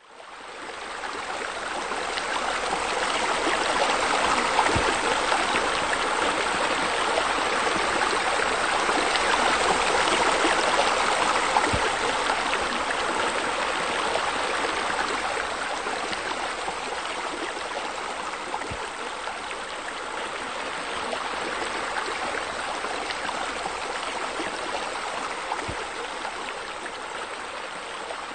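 Steady rush of running water, like a small waterfall pouring into a pool, fading in over the first second or so.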